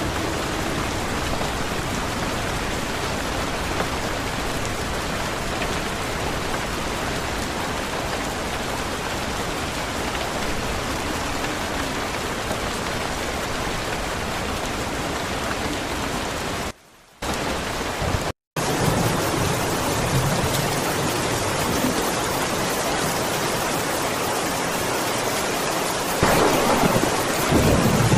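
Steady rain recording, an even hiss of heavy rainfall that cuts out briefly twice a little past halfway before carrying on. Near the end a low rumble of thunder swells under the rain.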